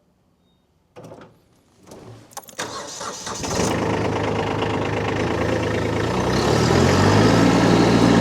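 Kubota compact tractor's diesel engine starting after a couple of short knocks, cranking and catching about three seconds in, then running steadily. Its pitch rises around six seconds in as the throttle is raised.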